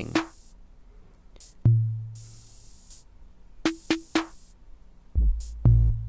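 Sparse electronic music from an analog synthesizer with drum-machine sounds: a deep kick thump with a held low note about two seconds in, hiss-like hi-hat hits, three short pitched blips, then heavy deep bass notes starting near the end.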